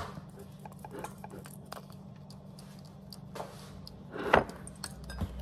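Small glass spice jar of paprika shaken over a bowl of flour: light ticks and rattles from the jar, with a sharper knock about four seconds in.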